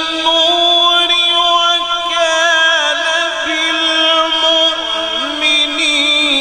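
A male qari's melodic Quran recitation (tilawat): one voice holding long, ornamented notes into a microphone, dipping to a lower pitch about five seconds in.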